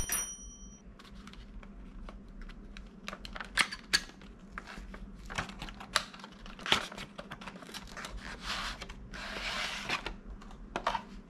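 A cardboard paint-set box and its clear plastic tray of small dropper bottles being handled and opened, heard as a run of sharp clicks, taps and scrapes of cardboard and plastic. About nine seconds in, a longer rustling scrape comes as the plastic tray slides out of the box. A short high chime rings at the very start.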